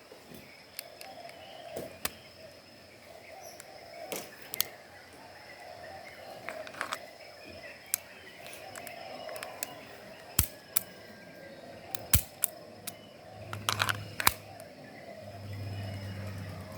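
KJW M9 gas blowback airsoft pistol firing single sharp shots at irregular intervals, a few of them much louder, around ten, twelve and fourteen seconds in. Insects chirp steadily underneath.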